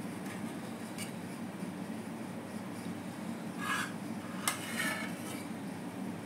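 A metal spoon scraping and clinking against a pot and serving bowl as thick khichda is dished up. There are two short spells of scraping past the middle and a sharp clink between them, over a steady low hum.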